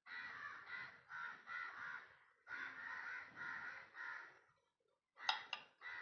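A crow cawing in rapid runs of repeated calls, followed about five seconds in by two sharp clicks in quick succession.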